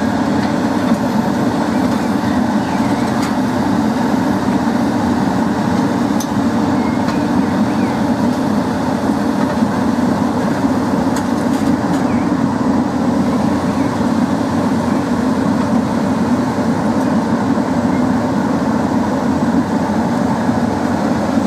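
A heavy engine running steadily at an even level.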